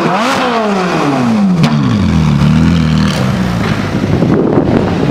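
Ferrari 458 Spider's V8 revving as it pulls away: the engine note peaks early, falls over about two seconds and holds a lower, steadier note, with one sharp crack about a second and a half in. A rushing noise takes over near the end.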